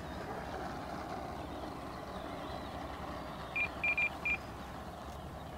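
Four short, high electronic beeps in quick succession about three and a half seconds in, over a steady low background noise while the electric RC C-130 model taxis.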